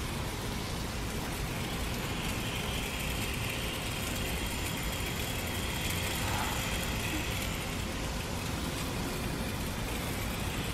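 Water spraying from a hose-end sprayer on a garden hose onto a lawn: a steady hiss of spray.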